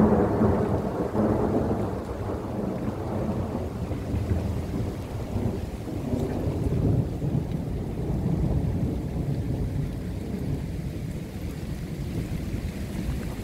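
A long roll of thunder during rain: it is loudest at the very start, then rumbles on low and slowly fades.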